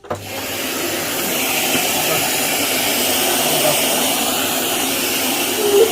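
Bosch Serie 2 bagless vacuum cleaner switched on and running with a steady airy whoosh, coming up to speed within about half a second.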